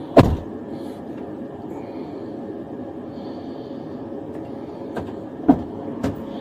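Steady rumble of a vehicle running, with a few short, sharp sounds over it: a loud one about a quarter of a second in, then two more about five and a half and six seconds in.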